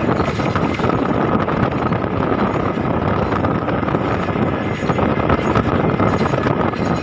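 Road vehicle travelling across a bridge: steady engine and road noise with wind buffeting the microphone, and a faint steady high whine.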